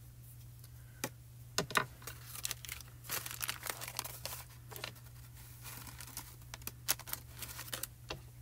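Paper coffee filter crinkling and rustling as it is folded to funnel excess embossing powder back into its jar, with a few sharp clicks from the jar being handled.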